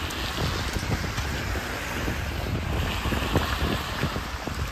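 Wind buffeting the microphone in irregular low rumbles over a steady hiss of rain and wet, slushy street.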